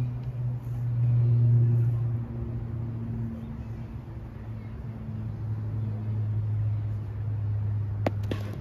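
A steady low hum runs throughout. A little past eight seconds in, a thrown steel petanque boule strikes with a sharp clack, and a weaker clack follows about a third of a second later.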